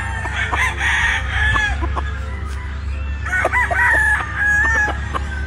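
Gamefowl roosters crowing, several crows overlapping at different pitches, in two bouts, one early and one a little past the middle, over a steady low rumble.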